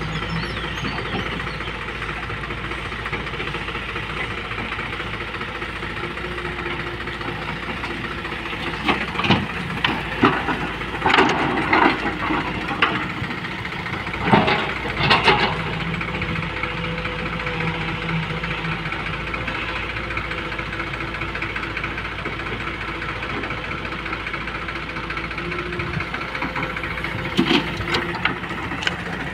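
Diesel engines of a Hyundai 210 excavator and a farm tractor running steadily. Clusters of sharp knocks and clatters come from the excavator bucket working soil and rocks, the last of them as soil drops into the tractor's trailer near the end.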